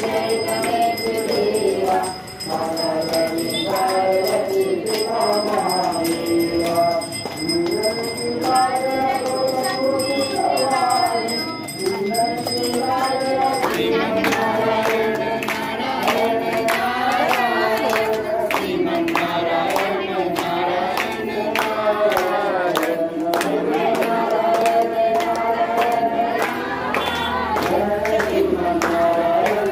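A crowd of devotees singing an aarti hymn together in unison. From about halfway, steady rhythmic hand-clapping joins the singing.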